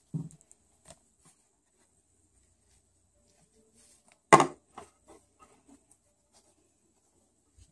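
Small plastic toy figurines being handled and set down on a wooden tabletop: scattered soft taps, with one louder knock about four seconds in followed by a few lighter clicks.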